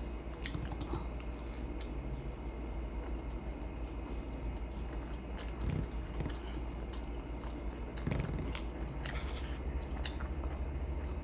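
A person chewing and biting food close to the microphone, with irregular wet mouth clicks and smacks, over a steady low hum.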